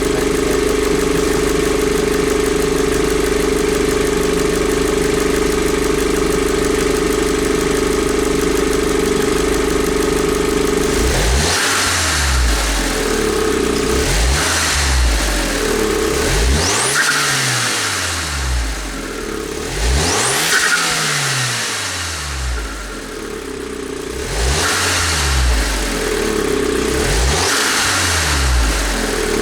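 Audi A4 B7 2.0T turbocharged four-cylinder engine idling steadily for about eleven seconds, then revved again and again in short blips. Some revs carry a rising turbo whistle, and the throttle closing brings compressor-surge flutter.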